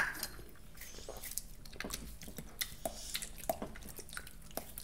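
Close-miked mouth sounds while tasting a sour drink: scattered soft lip smacks, tongue clicks and swallows, with a sharp click right at the start.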